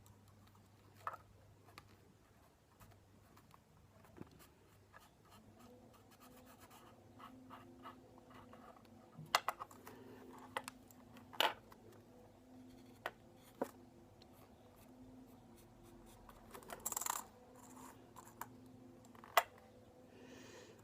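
Quiet marker pen scratching on a small plastic object, with scattered light clicks and taps as it is handled, and a louder rustle about 17 seconds in.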